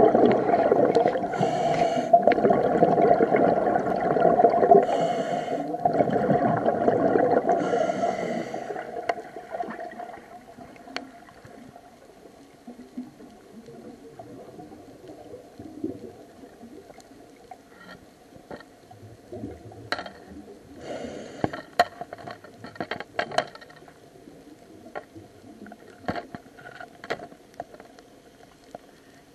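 Scuba diver breathing through a regulator underwater: exhaled bubbles gurgle and rumble for about the first nine seconds, broken by three brief hisses. After that it goes quiet, with scattered sharp clicks and crackles.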